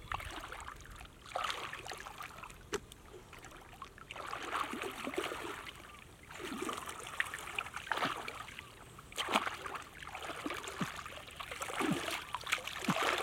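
Shallow muddy water sloshing and splashing in uneven surges as a person wades through it and gropes in it with his hands.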